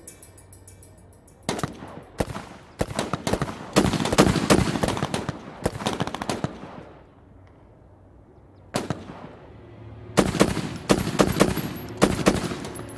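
Gunfire: a couple of single shots, then a long spell of rapid automatic fire that dies away. After a lull comes one more shot, then another burst of rapid fire near the end.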